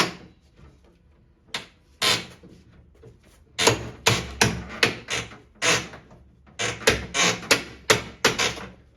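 Repeated blows struck on a wooden packing crate to knock it open: a couple of single knocks, then quick runs of several hits.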